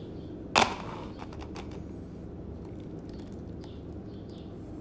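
A sharp clink of kitchenware about half a second in as a small metal mesh strainer is set over a measuring cup. A few lighter clicks and taps follow as cooked cherries are poured from a saucepan into the strainer.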